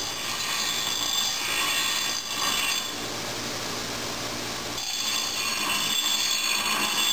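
ATD 8-inch bench grinder grinding a hand-held piece of steel in two passes: a harsh, hissing grind for nearly three seconds, a pause of about two seconds with only the wheel's steady motor hum, then a second grind to the end.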